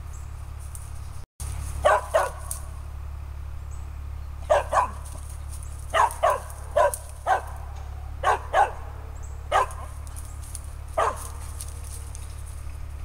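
A squirrel dog barking at a tree: about a dozen short, sharp barks, many coming in quick pairs, spaced a second or so apart. Steady, repeated barking of this kind is a dog treeing a squirrel.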